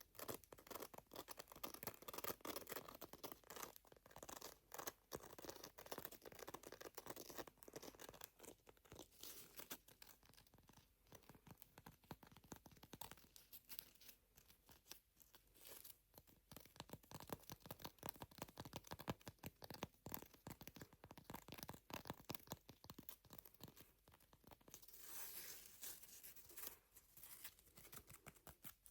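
A butterfly nail file being scratched close to the microphone: a faint, continuous rasping made of many quick, dense scratching strokes.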